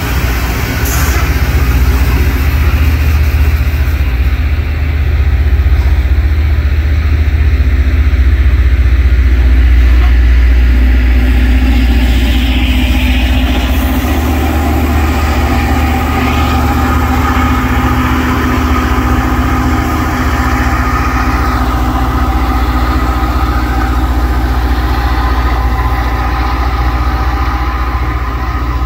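Rail grinding train at work passing close by: its engines running and its grinding stones scraping along the rails in a loud, steady rumble and grind. Steady whining tones join in the second half, and the sound eases slightly near the end as the train moves away.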